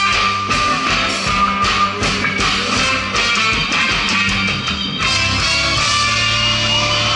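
Live band music, a guitar over drums and percussion. About five seconds in the drumming stops and a chord is held, ringing on.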